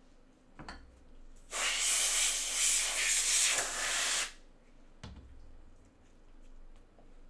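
A loud, steady hiss lasting about three seconds, starting about a second and a half in, with a dull thump shortly before it and another just after it stops.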